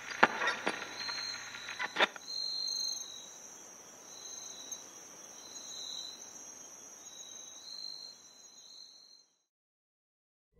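Crickets chirping, faint: a steady high trill with a higher chirp pulsing about once a second. A few clicks sound in the first two seconds, and the chirping fades out a little more than a second before the end.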